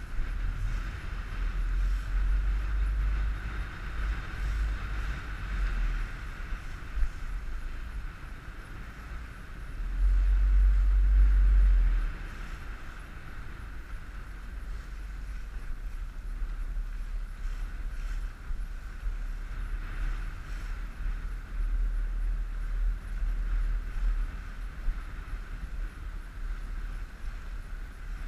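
Wind buffeting the microphone on a moving inflatable boat, a low rumble that gusts and is loudest about ten seconds in, over a steady hiss of the boat running through choppy water.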